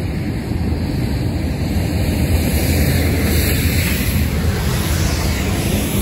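Wind buffeting the microphone with a heavy low rumble, swelling a little in the middle.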